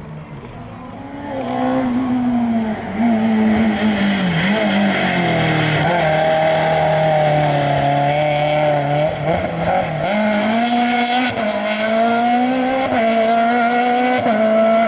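Small racing hatchback's engine revving hard, its pitch rising and falling over and over as it is driven through the slalom's cone chicanes. It grows loud about a second and a half in and stays loud as the car passes close and pulls away.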